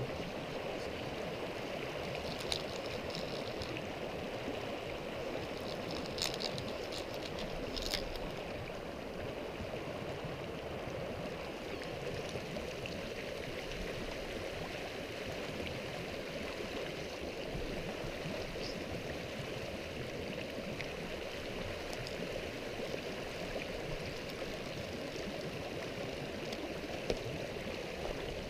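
Small mountain stream running steadily over rocks, a shallow riffle, with a few short sharp ticks a few seconds in.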